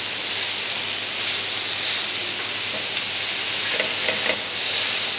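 Marinated chicken pieces sizzling steadily on a hot ridged grill pan, with a few light taps of the spatula against the pan about four seconds in as the pieces are turned.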